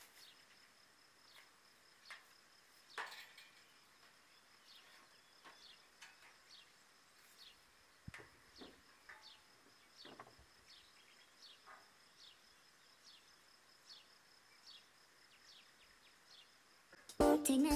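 Faint rural ambience: a bird repeats a short falling chirp about once or twice a second over a steady high insect buzz, with a few soft knocks. Music comes in loudly near the end.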